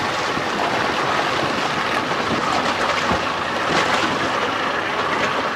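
Boat underway: an outboard motor running steadily under a continuous rush of wind and water noise.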